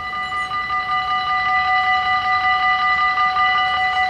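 Dutch level-crossing warning bells ringing in a rapid, steady string of metallic strikes, growing louder over the first second. The crossing has just activated, signalling that a train is approaching and the barriers are about to come down.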